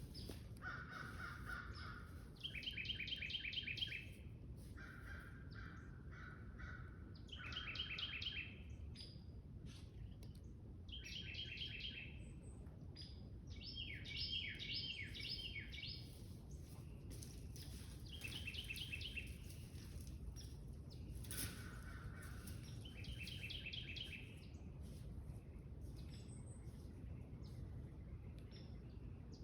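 Small birds calling: about ten separate runs of rapid, evenly repeated notes, each lasting one to two seconds, with a low steady background noise underneath and a single sharp click about two-thirds of the way through.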